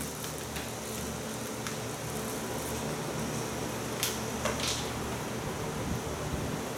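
Steady hum and hiss of room noise, like a fan or air conditioner, with a few short scratchy writing strokes about four seconds in as a triangle is drawn by hand.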